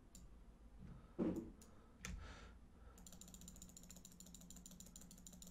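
Faint, rapid, evenly spaced mechanical ticking over a low steady hum, starting about three seconds in, after a couple of soft clicks.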